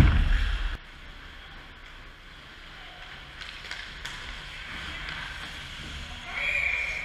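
Ice hockey play in an indoor rink: skates scraping the ice and sticks knocking, with a sharp knock right at the start and a low rumble that cuts off under a second in. A short, steady higher-pitched sound comes near the end.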